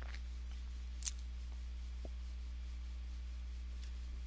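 Steady low electrical hum of the recording's background, with one short sharp click about a second in and a fainter tick a second later.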